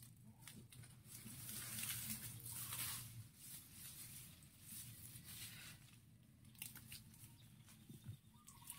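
Faint rustling of grass and leaves, a little louder for a second or so about two seconds in, with a few soft ticks.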